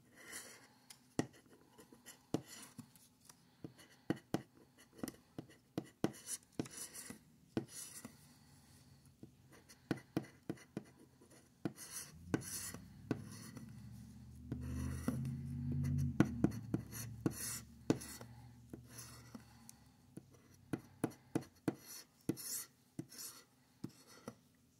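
Plastic scratcher tool scraping the coating off a paper scratch-off lottery ticket in short quick strokes, in clusters with pauses between strips. A low hum sits underneath for several seconds in the middle.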